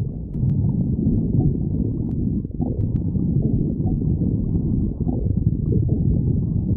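A person's stomach growling: a continuous low rumble with many short gurgles.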